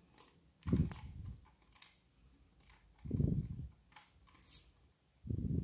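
Handling noise from a plastic 4G router held in the hands: faint small clicks of fingers on the casing, with three low, muffled rustles about two seconds apart.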